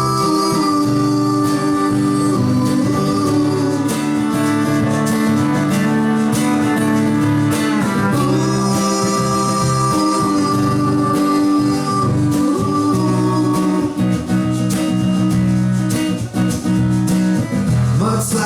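Acoustic country-folk band playing an instrumental break: guitar accompaniment under fiddle playing long held notes that slide from one pitch to the next.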